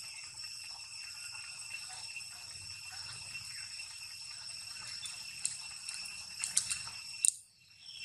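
Steady high-pitched insect drone, held on several even tones, with a few sharp clicks in the second half. The sound drops out briefly just before the end.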